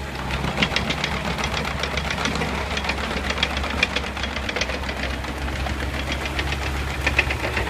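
Kubota KX101 mini excavator's diesel engine running and picking up just after the start as the machine moves, with a fast, uneven clatter of clicks over the engine hum.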